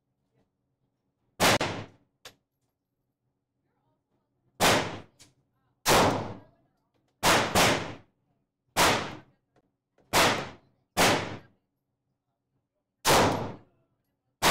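Gunshots fired one at a time, about ten in all, roughly one to two seconds apart with two in quick succession midway, each followed by a short echoing tail.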